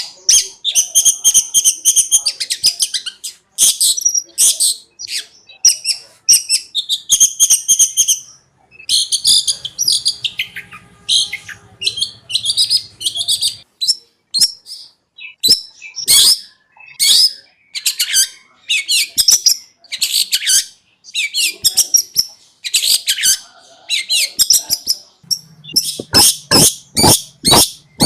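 Long-tailed shrike (cendet) singing: long runs of rapid, varied high chirps and trilled notes, broken by short pauses.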